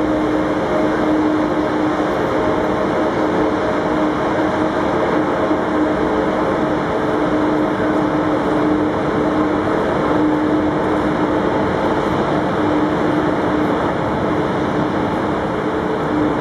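Deutsche Bahn ICE train standing at the platform with its onboard equipment running: a steady hum with a constant low tone.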